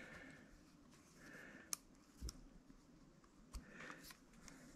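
Near silence with a few faint clicks as a small micrometer is handled against a tiny workpiece in a jeweler's lathe.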